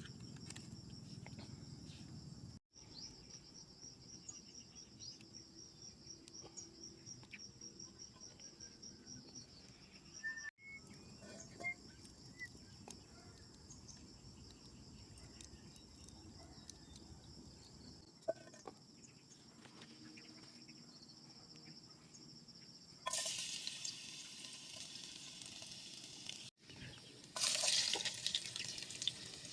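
Insects chirping with a steady, high pulsing trill, over a few soft knocks. About three-quarters of the way through, food starts sizzling in a frying pan, and it gets louder near the end.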